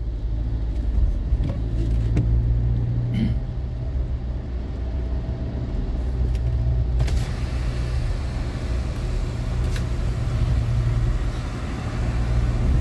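Car driving on a wet road, heard from inside the cabin: a steady low engine and road rumble, with tyre hiss on the wet surface that grows louder from about seven seconds in.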